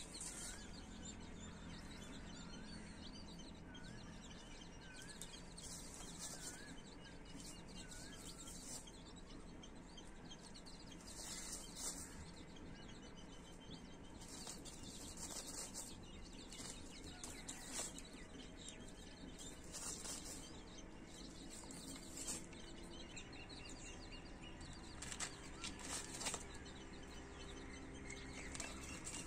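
Baby chicks peeping, a short call repeated several times in the first few seconds, with scattered short clicks and rustles from the birds pecking about on the ground.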